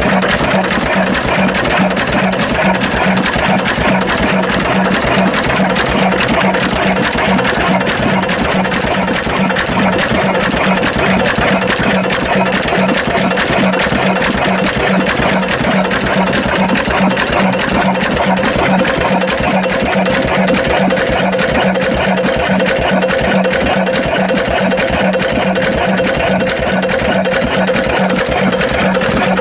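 Vintage stationary engine running steadily, with a fast, even mechanical clatter over a steady hum.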